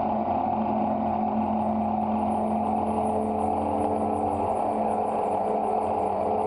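Live electronic drone music: a dense, steady wash of noise over sustained low tones, joined about two seconds in by a fast, high-pitched fluttering pulse.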